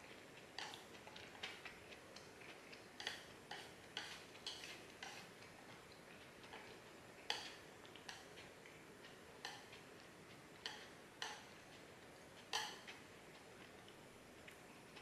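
Wooden chopsticks clicking and scraping against a plate while picking up the last bits of food: light, irregularly spaced clicks, with two louder ones about seven and twelve and a half seconds in.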